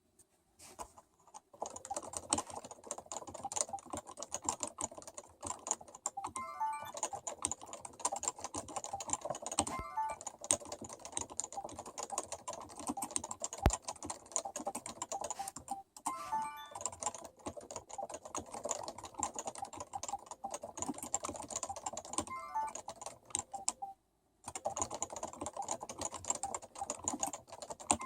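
Fast, continuous typing on a Topre Realforce keyboard with 30 g electrostatic capacitive keys: soft, dense keystroke clicks, with a few brief pauses.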